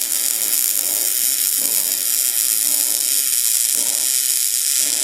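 MIG welder arc running steadily, a continuous crackling sizzle as a weld bead is laid along a joint of a metal bed frame.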